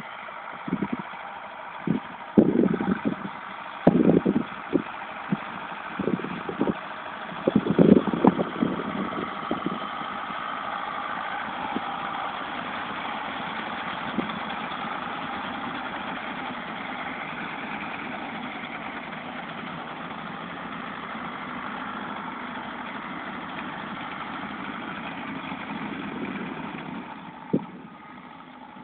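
Zetor 7245 tractor's four-cylinder diesel engine running steadily while it pulls a round baler through the straw. Several loud irregular thumps come in the first nine seconds, and the sound drops off near the end as the tractor moves away.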